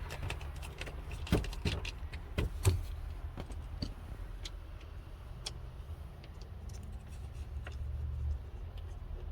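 Irregular light clicks and taps of a screwdriver and T25 bit against the steering column trim while a screw is worked into a tight spot, most of them in the first few seconds. A low steady hum runs underneath.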